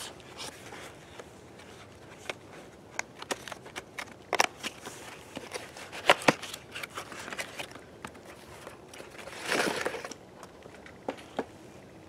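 Handling noise from gear being taken out of a bag: scattered light clicks and taps, with a longer rustle about nine and a half seconds in.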